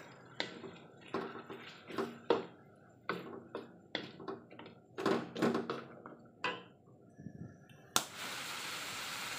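Wooden spatula stirring and scraping pork trotters around a black wok, a run of irregular scrapes and knocks against the pan. Near the end a steady sizzle starts suddenly.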